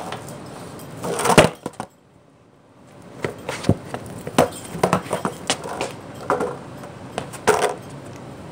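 Skateboard clacking and knocking on a concrete floor, its wooden deck and wheels striking the ground in a run of sharp hits. The loudest hit comes about a second and a half in, then about a second of near quiet, then a quick series of lighter clacks and scuffs.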